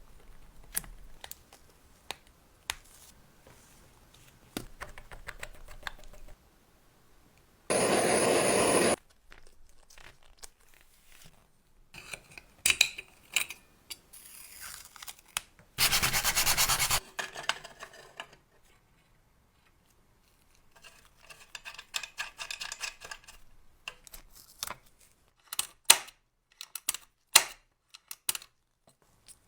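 Hand work on a small lighter: rubbing and scratching strokes with scattered clicks, and two loud hissing bursts about a second long, one about eight seconds in and one about sixteen seconds in.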